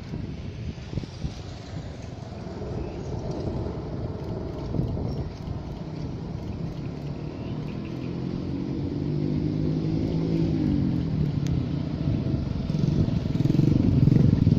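KRD-H diesel-hydraulic railcar approaching, its engine and running gear a low rumble that grows steadily louder. A droning engine note comes through about halfway in and dips in pitch as it fades back into the rumble.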